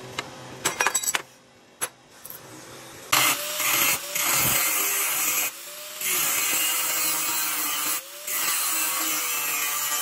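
A few sharp metal clanks, then an angle grinder with a cut-off disc cutting sheet steel from about three seconds in. The cutting breaks off briefly twice, and the motor's whine dips each time the disc bites.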